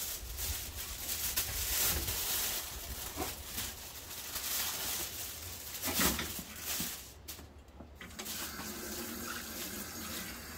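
Water running from a sink tap, with aluminium foil crinkling sharply as a fish is wrapped in it. After about seven seconds the crinkling stops and water runs over hands rinsing in the sink.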